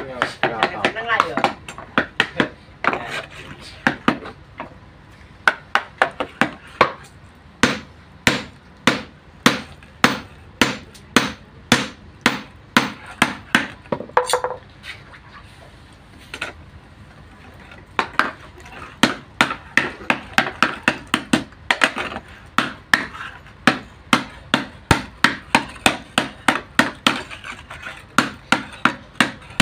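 Blacksmith's hand hammer striking a red-hot hoe blade on a small anvil: a run of sharp metal-on-metal blows at about two to three a second, with a few short pauses. The hoe is being hot-forged with a piece of old saw blade joined onto it to make it harder and sharper.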